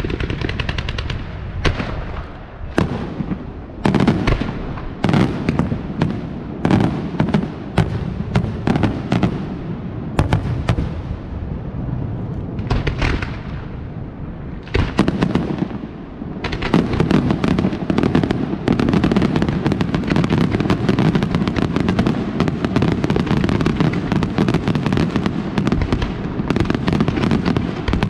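Fireworks display: a rapid run of bangs and crackle from shells and ground batteries. It thins out to scattered bangs about halfway through, then builds to a dense, continuous barrage.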